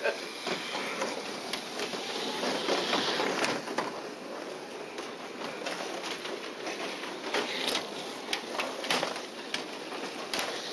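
Kyosho dNaNo 1/32-scale electric RC cars running on the track, a steady mechanical whirring with many small clicks.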